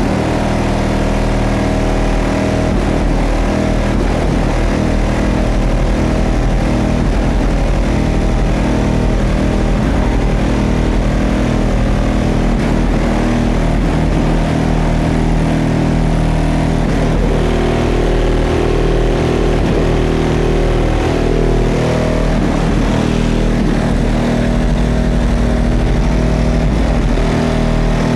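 Competition car-audio subwoofer system in a full-size SUV playing heavy bass, heard from outside the vehicle: loud, steady low tones that shift pitch a couple of times.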